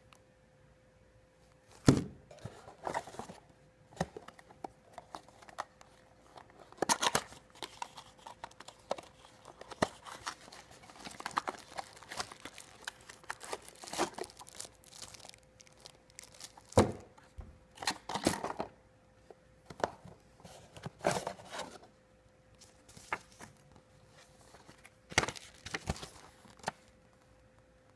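Clear plastic packaging bag crinkling and rustling in handling as a battery charger is unwrapped, then paper leaflets rustling, in irregular bursts with a few sharp knocks, the loudest about 2 seconds in and about 17 seconds in.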